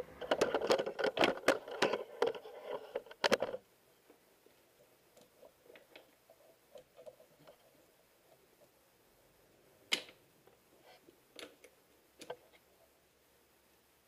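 Clicking and rattling of hands fitting a rubber coolant hose and spring clamp onto a small pipe in a car's engine bay: a dense run of clicks for about three and a half seconds, then a few single sharp clicks near the end.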